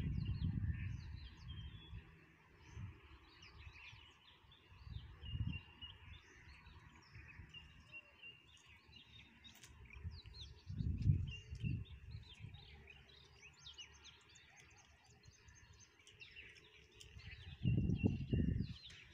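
Small birds chirping and twittering in a busy, continuous outdoor chorus. A few brief low rumbles break in, near the start, about a third of the way in, around the middle and near the end.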